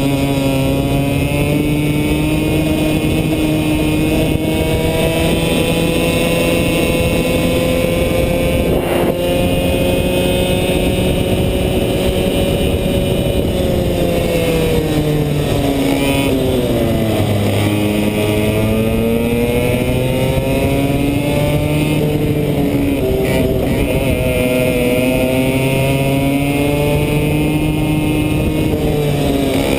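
100cc two-stroke kart engine at high revs, heard close up from on board. Its pitch holds steady, falls steeply about halfway through, climbs back up, and dips briefly again later.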